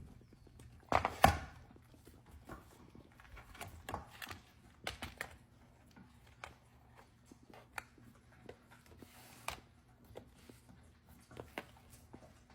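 Dogs eating from slow feeder bowls: irregular clicks and knocks of food and bowl, with a louder knock about a second in.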